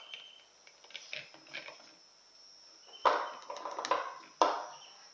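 Red plastic vacuum flask being handled and its stopper worked: a few light clicks, then two sharp knocks about a second and a half apart with some clatter between them.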